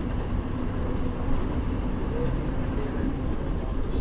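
Bus on the move, heard from inside: a steady engine hum and road rumble, with faint voices of passengers underneath.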